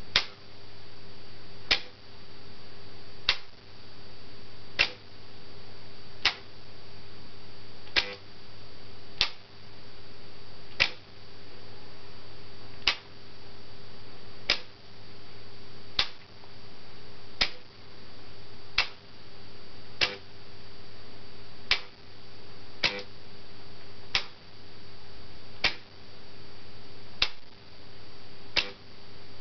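Remote-controlled LEGO railway turnout being switched back and forth: a sharp click about every one and a half seconds, over a steady low hum.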